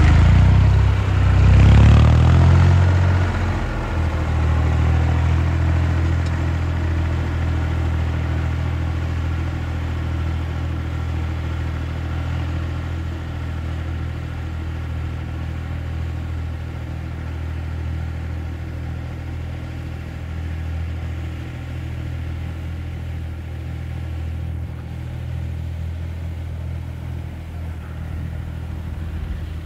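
Farm tractor engine revving briefly a second or two in, then running steadily and growing gradually fainter as it moves off.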